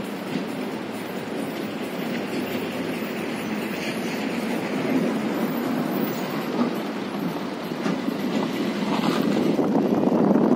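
Steady rushing of the Kali River, a fast Himalayan river, growing a little louder toward the end.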